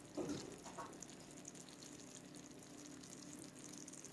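Quiet room tone with a faint steady hum, and a couple of soft, brief sounds in the first second.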